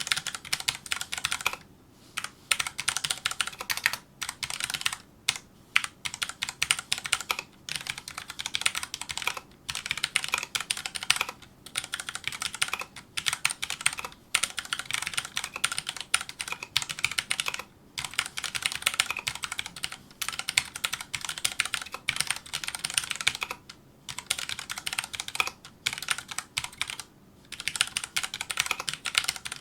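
Fast touch-typing on a Filco Majestouch2 mechanical keyboard with Cherry MX Brown switches: a dense stream of key clicks in quick runs broken by brief pauses.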